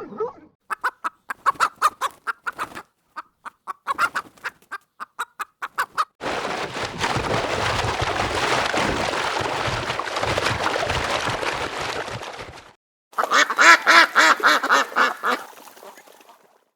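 Domestic fowl calling. First comes a rapid run of short repeated calls for about five seconds. Then a steady rush of noise lasts about six seconds. Near the end there is a burst of loud, pitched calls.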